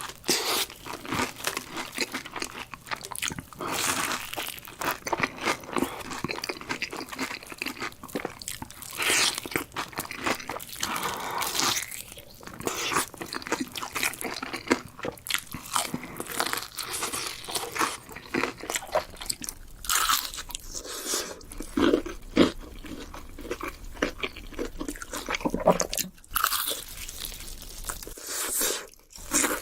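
Crisp fried chicken being bitten and chewed: crunch after crunch in quick, irregular succession.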